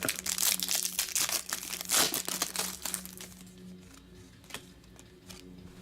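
Trading-card pack wrapper crinkling as it is torn open and handled, busy over the first three seconds, then a few lighter rustles and clicks.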